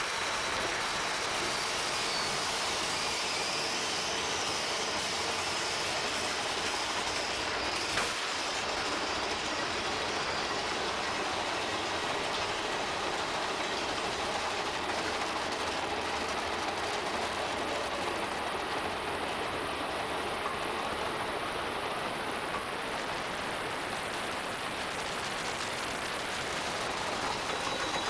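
Mine-train roller coaster cars rolling steadily along the track through a tunnel, with a single knock about eight seconds in.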